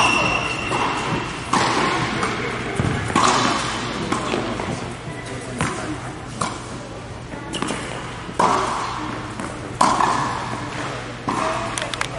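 Tennis ball struck by rackets and bouncing on a hard court during a rally, sharp hits about every second to second and a half, each echoing in a large indoor tennis hall.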